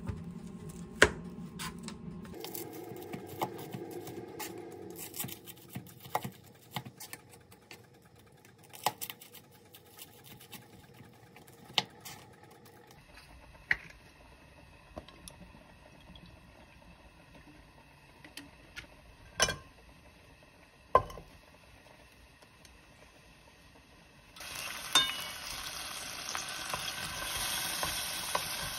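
A kitchen knife chopping bacon on a cutting board, followed by scattered knocks and clatter of kitchenware being handled. Near the end, shrimp sizzle steadily in hot olive oil in a frying pan and are moved with a wooden spatula.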